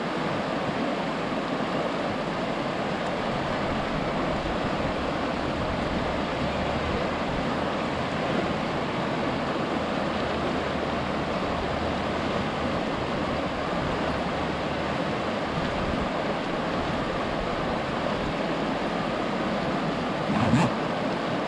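Rushing river: a steady wash of fast, shallow water running over rocks. A brief louder sound comes near the end.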